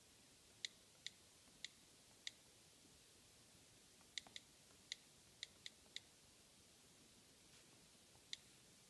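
About eleven short, sharp, light clicks at an irregular, typing-like pace, from the iPad Air being tapped: a few spaced clicks, then a quick cluster of six, then one more near the end.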